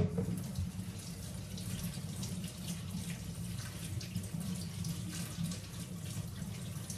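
Kitchen tap running water into the sink, a steady splashing hiss.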